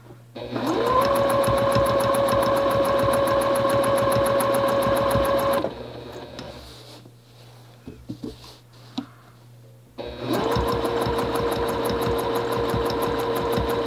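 Juki 2010 home sewing machine quilting with a ruler foot, running at a fast, steady stitching speed. It spins up about half a second in and runs for about five seconds, stops, and starts again about ten seconds in. The pause holds a few light clicks and knocks.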